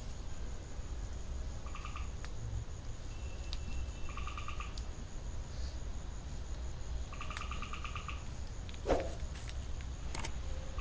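Night insects chirping: three short, rapidly pulsed trills over a steady high-pitched insect drone. A little before the end comes a brief falling squeak, the loudest sound, then a few clicks.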